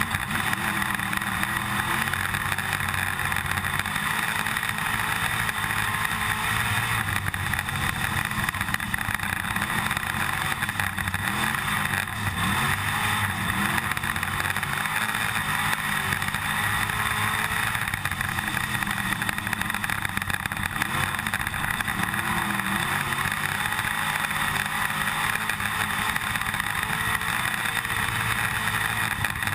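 IMCA stock car's V8 engine running hard at race pace, its pitch rising and falling again and again through the laps, heard from inside the cockpit over a constant rattle of the car and camera.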